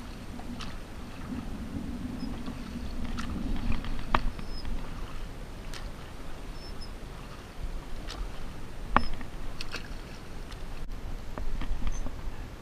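Water splashing and dripping beside a small boat as a smallmouth bass is lifted out by hand, with a few sharp clicks, the loudest about nine seconds in.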